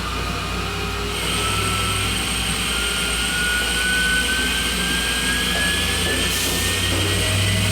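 Tormach Slant-Pro CNC lathe taking a finishing facing pass on a 1045 steel cone. The spindle drive whines, rising slowly and steadily in pitch as the spindle speeds up toward the centre of the face, over a steady machine hum.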